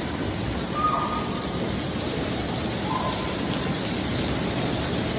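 Steady rush of water around the pool and water-play structure, with two brief distant children's shouts about one and three seconds in.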